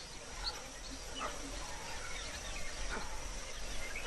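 Rainforest ambience: scattered short bird chirps and a couple of faint falling calls over a steady high insect drone and a soft background hiss.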